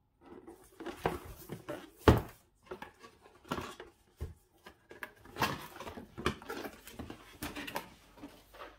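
Irregular knocks, clicks and rustles of objects being handled, with one sharp knock about two seconds in.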